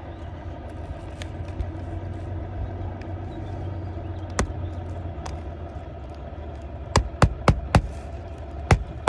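Hammer driving roofing nails into an asphalt shingle: one sharp strike, then a quick run of four blows about a quarter second apart and another just before the end, over a steady low background hum.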